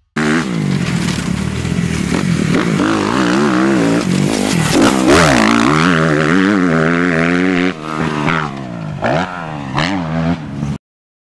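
Dirt bike engine revving, its pitch rising and falling again and again as the throttle is blipped; it drops somewhat in level near the end and then cuts off suddenly.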